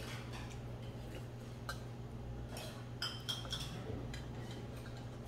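Metal spoon clinking against a stainless steel bowl a few times, with a short metallic ring about three seconds in.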